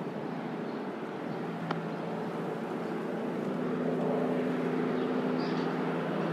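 Steady city road traffic: engine drone and tyre noise blending together, growing a little louder about four seconds in.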